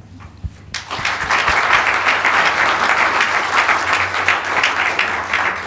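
Conference audience applauding, the clapping starting about a second in and carrying on steadily.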